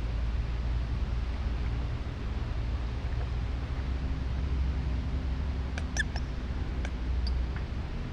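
City park ambience: a steady low rumble with a light hiss, and a few short high chirps or squeaks about six to seven seconds in.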